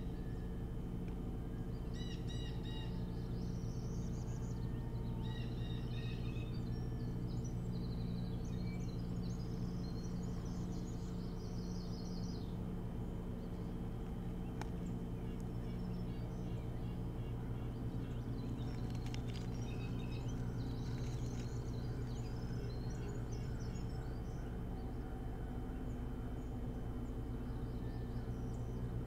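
Series of short, high chirping bird calls, repeated several times, over a steady low hum.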